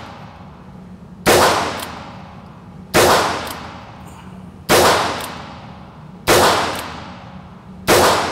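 Ruger Wrangler .22 LR single-action revolver fired five times, about one shot every 1.6 seconds, each crack trailing off in the echo of an indoor range.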